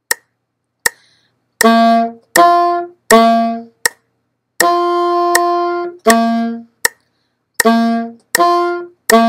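Metronome clicking at 80 beats per minute, two clicks alone as a count-in, then a tenor saxophone playing a tongued march warm-up that alternates between G and D (written): short quarter notes on the clicks, one held half note, and silent beats where only the click sounds.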